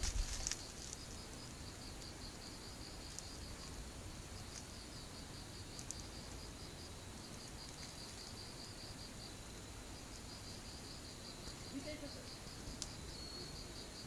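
Crickets chirping in a rapid, even train of short high-pitched pulses, with a brief pause midway. A few handling bumps of the phone at the very start are the loudest sounds.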